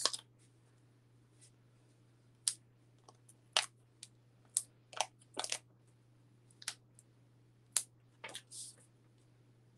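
Foam adhesive dimensionals being peeled one by one off their backing sheet and pressed onto a cardstock tag: about ten short ticks and crinkles, irregularly spaced, with a longer paper rustle near the end.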